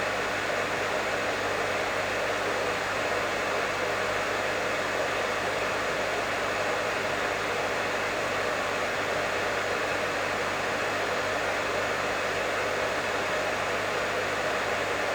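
Professional hair dryer running steadily: an even, unbroken rush of air and fan noise with a steady low hum underneath.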